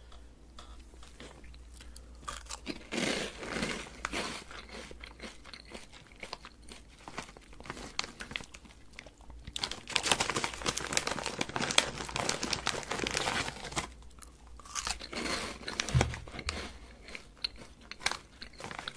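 Close-miked crunching and chewing of a puffed corn snack chip. The crunching comes in three bursts, the longest and loudest starting about ten seconds in, with quieter chewing between them.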